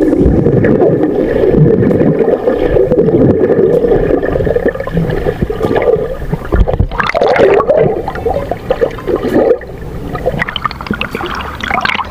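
Water gurgling and sloshing right at the microphone, loud and uneven, with heavier splashy surges about seven seconds in and again near the end.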